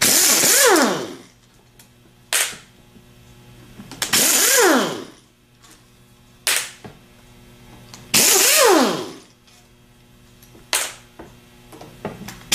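A power driver with a long socket extension runs in three bursts of about a second each, backing out the E8 Torx screws that hold a Delco 37MT starter's back plate. Each burst ends in a falling whine as the motor spins down. Sharp clicks fall between the bursts.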